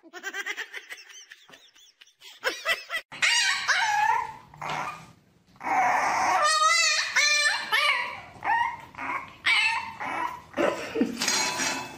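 Puppies whining and yipping in a run of short, high calls that waver in pitch, the busiest stretch coming about halfway through.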